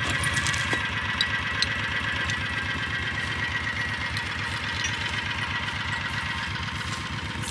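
Utility vehicle engine idling steadily, with a steady high whine above it and a few light clicks.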